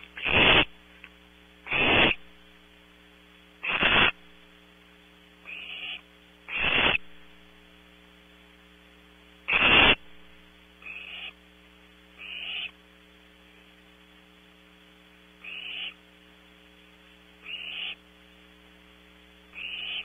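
Barn owl owlets giving short, harsh hissing snore calls, the nestlings' food-begging call, about one every one to two seconds, some loud and some fainter. A steady electrical hum lies underneath.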